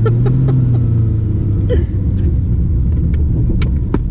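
Nissan Skyline R32 GT-R's RB26 straight-six, now running a single BorgWarner turbo in place of the factory twins, droning steadily as heard from inside the cabin while driving. Its pitch drops a little about two seconds in, and a few short clicks come near the end.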